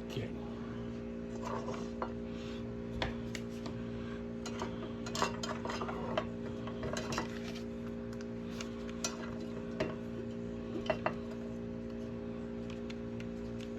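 Scattered small metallic clicks and taps of hand tools against a circuit board and metal box while the old board is desoldered and worked loose, the sharpest pair near the end, over a steady low electrical hum.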